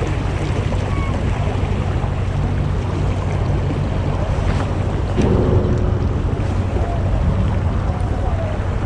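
Shallow creek water rushing over gravel, with wind buffeting the microphone.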